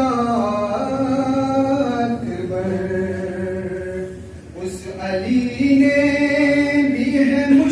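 Male devotional chanting: a sung religious refrain in long held notes, with a short break about four seconds in before the next phrase.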